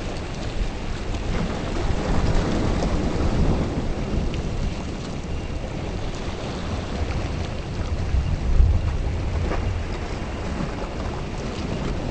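Approaching thunderstorm: a steady hiss of rain with a low rumble underneath that swells briefly about eight and a half seconds in.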